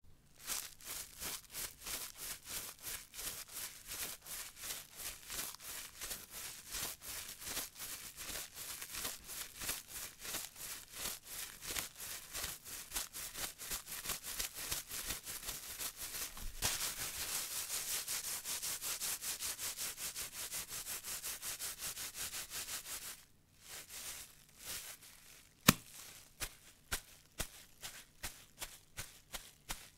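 Footsteps through grass, a sound effect: a regular run of rustling steps, about two or three a second. They merge into a denser, continuous rustle for several seconds past the middle. After a brief lull come a single sharp click and then more widely spaced steps.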